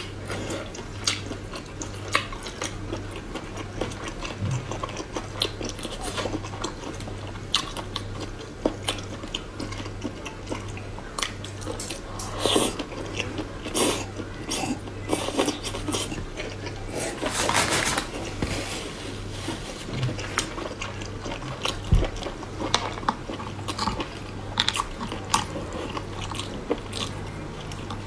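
A person biting and chewing spicy squid, with many short clicks throughout and a longer noisy patch about 17 seconds in. A steady low hum runs underneath.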